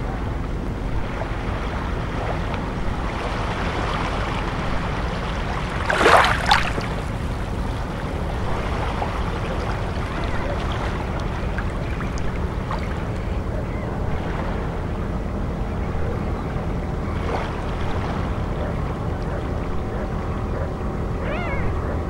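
Calm sea water lapping gently over a pebble shore, over a steady low rumble. About six seconds in comes one louder, sharp splash in two quick pulses.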